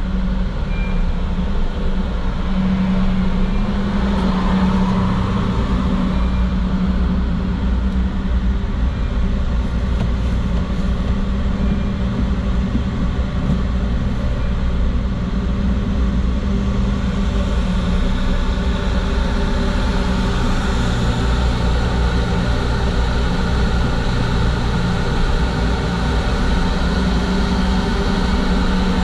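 Steady low engine drone with a constant hum and a few steady tones, unchanging throughout.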